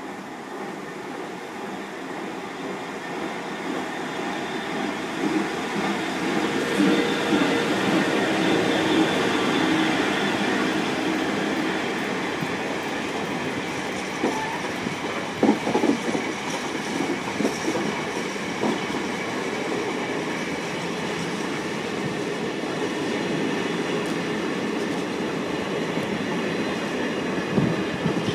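GB Railfreight Class 66 diesel locomotive, a two-stroke V12, passing with its engine running, growing louder over the first few seconds. It is followed by container wagons rolling by, with sharp wheel clicks over rail joints and a steady rumble of wheels on rail.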